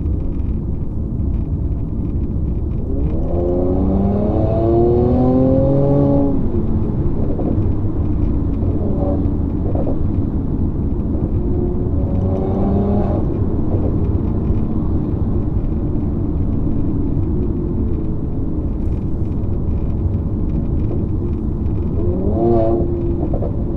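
2019 Mercedes-AMG C43's twin-turbo V6, with its AMG performance exhaust in Sport+ mode, heard from inside the cabin over a steady road rumble. The engine pulls with a rising pitch from about three seconds in until it drops off near six seconds, rises briefly again around twelve seconds, and climbs once more near the end.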